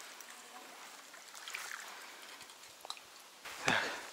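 Faint steady outdoor hiss, then, in the last half second, louder rustling and knocking of the camera being handled and picked up close to the microphone.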